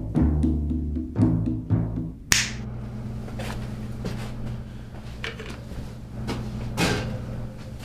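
Film score of low, drum-like notes for about two seconds, ended by a single sharp finger snap. A steady low hum follows, with a few faint knocks.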